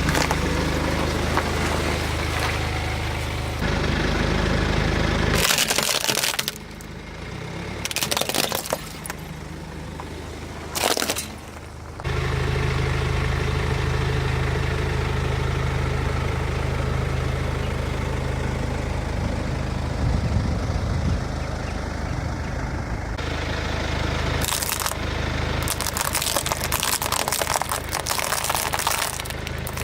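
A car's engine running while its tyres crush apples and nuts, with repeated cracking and crunching. The sound changes abruptly several times, as between cut shots.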